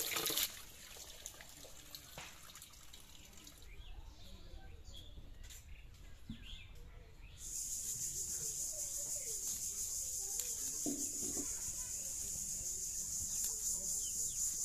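Water from a hand pump splashes over fish in a plastic basket and stops about half a second in. Then come a few bird chirps over a quiet outdoor background, and about halfway through a steady high-pitched shrill drone starts suddenly and holds.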